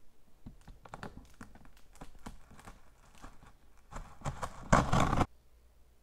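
Cardboard box being opened by hand: a run of small crackles and scrapes as the flaps and packing tape are worked, then one loud rip of about half a second near the end.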